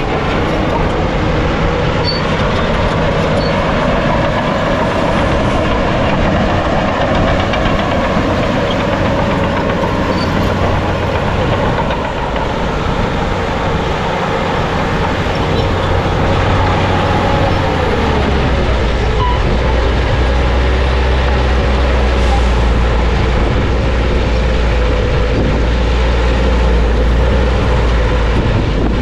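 Crawler bulldozer's diesel engine and tracks working steadily. About two-thirds of the way through, the engine note drops and deepens.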